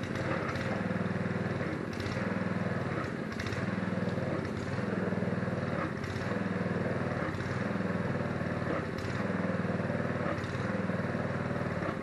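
Small gasoline engine of a wheeled pressure washer running steadily, its sound rising and falling regularly about every second and a half.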